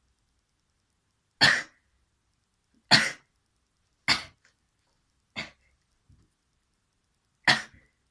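A person coughing: five short, sharp coughs about a second to a second and a half apart, the fourth weaker than the rest.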